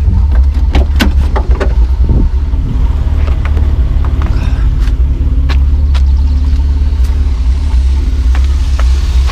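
BMW M50 straight-six running at idle with a steady low rumble, a few clicks and knocks in the first two seconds. The owner thinks it has a slight exhaust leak from gaskets that were not renewed.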